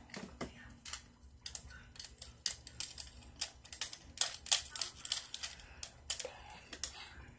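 Fingers tapping on pens and markers standing in a pen cup for ASMR: irregular quick clicks, a few a second.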